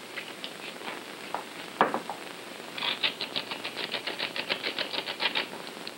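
Hand-held salt and pepper mill being twisted to grind seasoning: a few scattered clicks and a knock, then from about three seconds in a fast, even run of dry clicks, about eight a second, lasting a couple of seconds.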